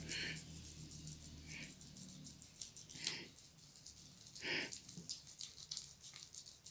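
Hands being scrubbed with a cut lemon: faint wet rubbing and squishing in four short bursts, over light ticking.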